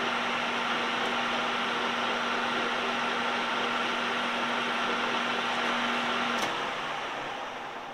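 Metal lathe running with its chuck spinning a stainless steel shaft: a steady machine whine over a low hum. About six and a half seconds in the motor is switched off and the lathe spins down, the sound fading away.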